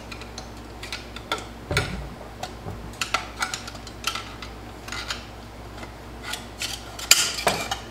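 Metal parts of a Turbo 350 automatic transmission clinking and knocking against the transmission case as internal components are worked loose by hand: scattered light clicks, with louder clanks about two seconds in and again near the end.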